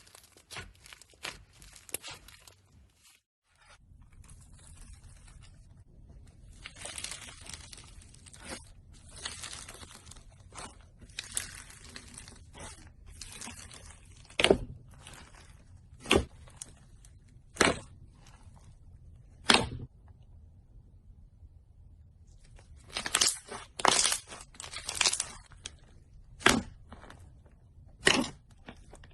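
Slime being squeezed and stretched by hand: a crackling, crinkly rustle with sharp pops of trapped air, several of them loud and spaced a second or two apart, and a quick cluster of pops a little after the middle.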